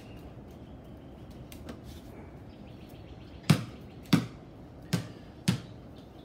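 A basketball dribbled on a hard tiled floor, four bounces spaced a little over half a second apart in the second half.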